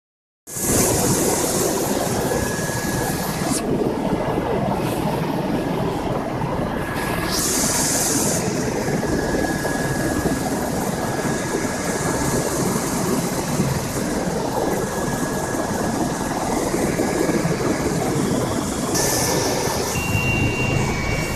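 Helicopter turbine engine and rotor noise heard steadily from inside the cabin, with a faint high whine running through it.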